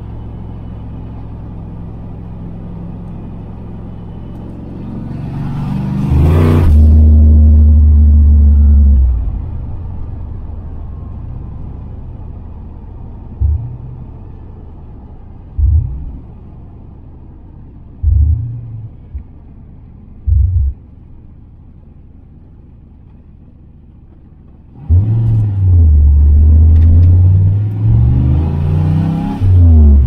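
Turbocharged 5.0 V8 of a Fox-body Mustang heard from inside the cabin. It cruises steadily, then surges hard about five seconds in with a short hiss and eases off around nine seconds. After a few short stabs of throttle and a quieter stretch, it pulls hard again from about 25 seconds, rising in pitch, with another short hiss near the end.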